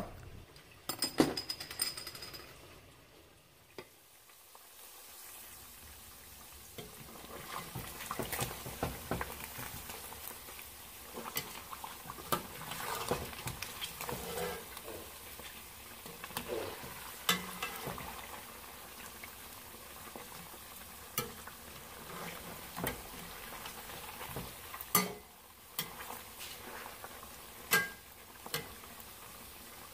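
Pork chunks sizzling and bubbling in lard and juices in an enamelled Dutch oven, while a metal slotted spoon stirs them, scraping and clinking against the pot.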